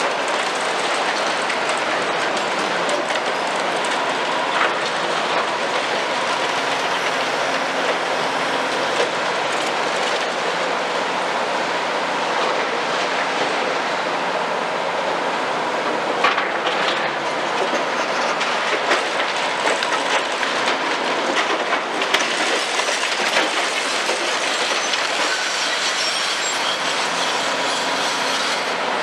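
Demolition excavator at work: a steady din of machinery with the grinding, crunching and clattering of concrete being broken. A few sharper cracks stand out through it.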